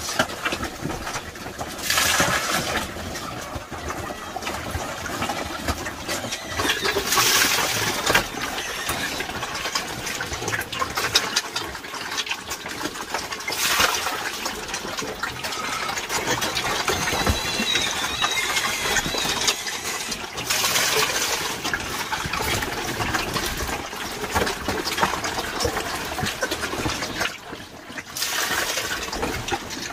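A group of young pigs jostling at a rubber tub, slurping and chomping wet feed, with a steady clatter of small wet clicks. A scoop of water splashes into the tub every few seconds, five times in all.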